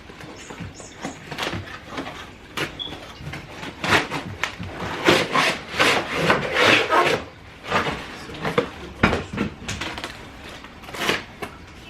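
Packaging of a toy RC car being opened and handled by hand: irregular scraping, rubbing and knocking strokes, busiest in the middle.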